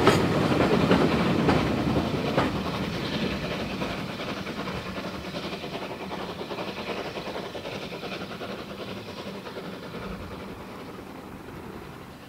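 A short train hauled by a Peckett 0-4-0 saddle tank steam locomotive running away into the distance. Its wheels click over rail joints a few times in the first couple of seconds, then the running sound fades steadily.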